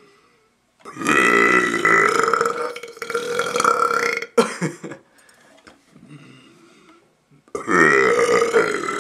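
A young man burping on purpose: one long, steady-pitched burp of about three and a half seconds, a few short sharp sounds just after it, then a second long burp starting near the end.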